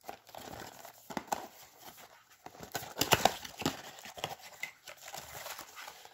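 Trading card box and foil packs being handled and opened by hand: packaging crinkling and tearing, with an irregular run of light cardboard knocks and taps.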